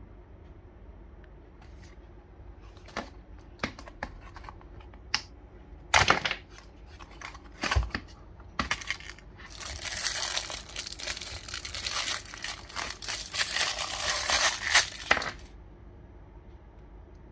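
Toy packaging being opened: scattered sharp clicks and taps, then about five seconds of continuous crinkling and tearing that stops suddenly near the end.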